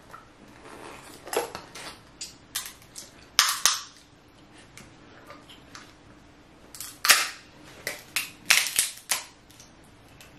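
King crab shell cracking as it is broken open and cut with metal seafood scissors, close to the microphone: a scattered series of sharp cracks and snaps, the loudest about three and a half seconds in and again from about seven seconds on.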